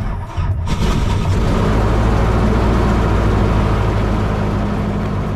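COZY MkIV aircraft piston engine running steadily and loud, heard from inside the cockpit. It comes in suddenly at the start and fills out within the first second.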